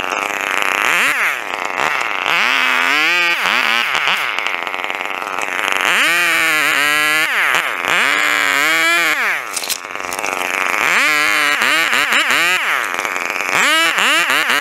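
Two-stroke chainsaw revving up and falling back again and again as it cuts limbs off the trunk, with quicker blips of the throttle near the end.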